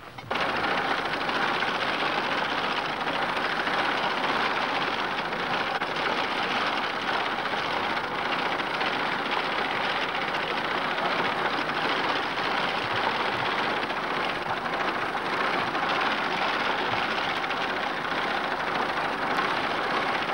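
Horse-drawn mechanical reaper clattering steadily as it cuts standing wheat: the reciprocating sickle-bar knife and its wheel-driven gearing and rake arms.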